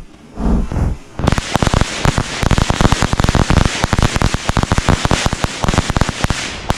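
Bundles of matchbox bombs, small Diwali firecrackers, going off one after another: a dense, rapid crackle of sharp pops that starts about a second in and keeps going.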